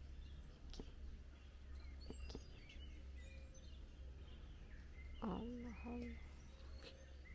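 Small birds chirping and calling, with many short high chirps and whistles over a steady low rumble. A brief, faint sound of a person's voice about five seconds in.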